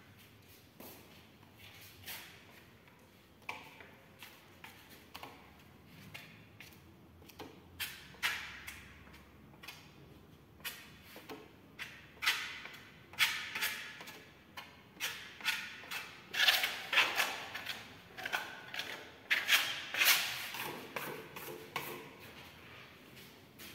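Steel trowel scraping and sweeping decorative paint across a wall in short, repeated strokes. The strokes come faster and louder from about halfway through.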